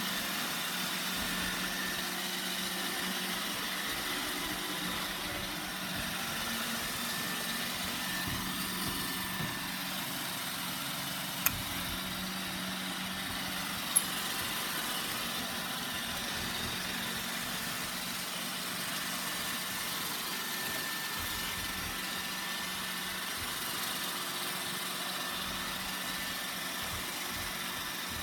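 Roomba 960 robot vacuum running with a steady motor hum, and two sharp clicks a couple of seconds apart near the middle.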